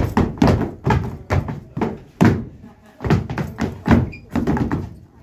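Children's shoes stamping and tapping on a wooden floor in zapateo footwork, an irregular run of sharp strikes with a few louder stamps among them.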